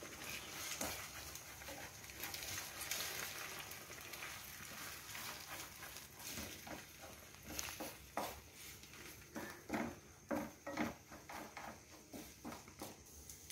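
Eggs sizzling in a nonstick frying pan while a wooden spatula stirs and breaks them up. It scrapes the pan and knocks against it in many short taps, most often in the second half.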